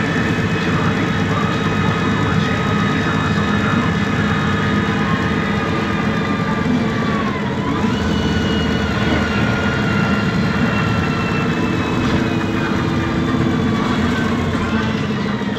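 2006 MAN Lion's City G CNG articulated bus running, its MAN E 2866 gas engine a steady low drone under several high whines from the Voith 864.4 gearbox. About halfway through, the whines dip in pitch and then climb again.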